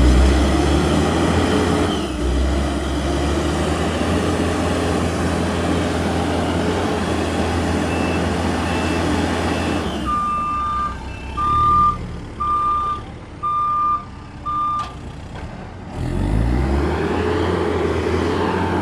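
A heavy vehicle's engine runs loud and steady for about ten seconds. It then drops back while a reversing alarm beeps five times. Near the end the engine revs up and settles again.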